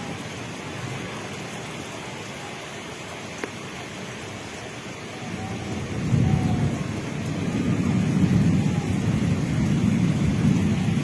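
Heavy rain falling steadily, with a long, deep roll of thunder that builds about halfway through and keeps rumbling.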